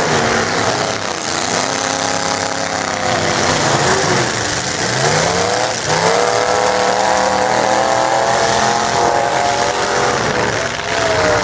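Several stock demolition derby trucks' engines revving and running together, their pitch repeatedly rising and falling as they drive and reverse on dirt.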